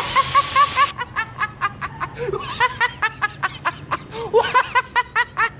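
A person laughing in quick, short snickers, several a second, with a hiss that cuts off about a second in.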